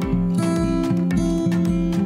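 Outro music: an acoustic guitar strumming, with notes changing on a steady beat and a low bass pulse.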